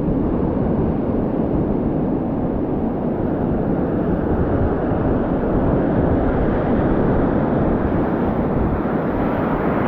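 Ocean surf breaking and washing in a steady rush, with wind buffeting the microphone.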